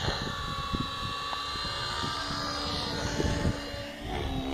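Radio-controlled model helicopter flying overhead, its rotor and motor giving a steady high whine, with wind buffeting the microphone.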